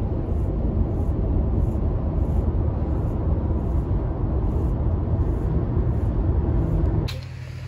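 Road and engine noise inside a moving car's cabin: a steady low rumble. About seven seconds in it cuts off suddenly to a quieter, steady motor hum.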